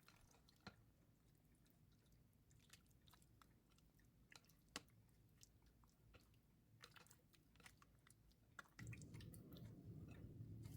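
Very faint, scattered wet squishes and clicks of sliced chicken breast being mixed into a blended cilantro marinade in a bowl. A faint low rumble comes in near the end.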